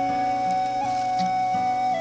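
Background music: a melody holding one long note over a soft, regularly repeating low note.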